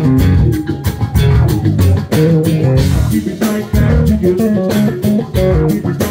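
Live blues-rock band playing loudly: electric guitar over bass and drums, with the drum strikes keeping a steady beat.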